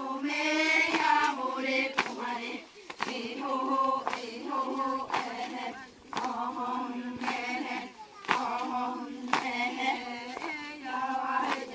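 A group of women's voices singing a chant together in short repeated phrases, with a sharp beat about once a second.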